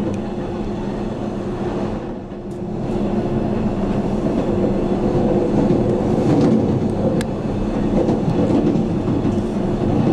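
Electric train running along the track, a steady rumble of wheels on rails with a few faint clicks, growing a little louder after a couple of seconds.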